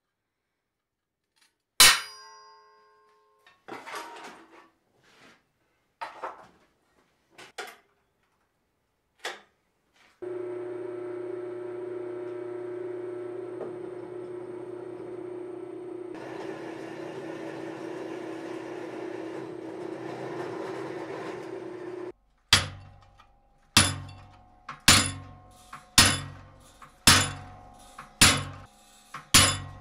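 A single loud ringing clang of steel, then a few light metallic clinks. A drill press runs steadily for about twelve seconds, its bit boring into the steel plate. It cuts off, and the treadle hammer starts striking a cold chisel on the plate about once a second, each blow ringing.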